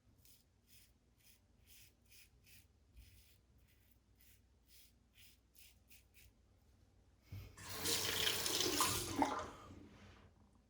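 Safety razor scraping through lathered stubble in short quick strokes, two or three a second. About seven seconds in, a tap runs for a couple of seconds to rinse the razor; this is the loudest sound.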